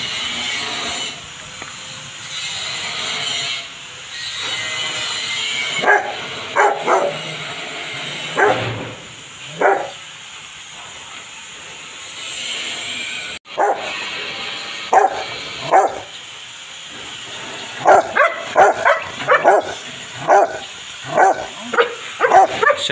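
Rottweiler barking: scattered single barks, then a fast run of barks in the last five seconds. A steady hiss of water spraying from a garden hose runs under the first few seconds.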